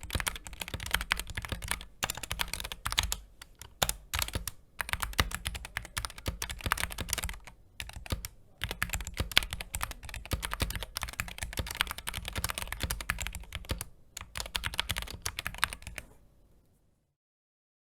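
Computer keyboard being typed on rapidly: a fast, continuous clatter of keystrokes with a short break about halfway through, stopping shortly before the end.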